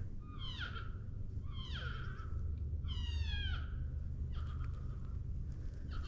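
Three descending, mewing calls, each under a second long, typical of elk cow or calf mews. They come about a second and a half apart over a steady low rumble.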